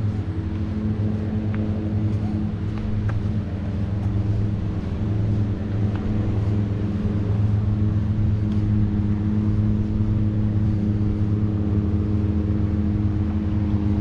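An engine running steadily at an unchanging pitch: a low, continuous drone.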